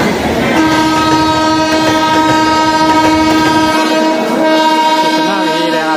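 Train horn sounding one long, steady blast that starts about half a second in, over the rumble of a train at a station platform. The low rumble fades out partway through while the horn holds.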